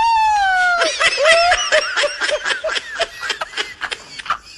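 Laughter: a long high-pitched squeal held for about a second, then quick bursts of laughing that fade out near the end.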